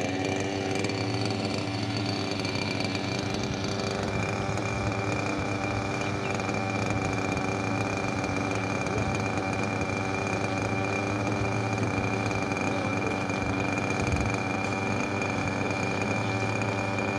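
A small engine running steadily, holding a constant pitch.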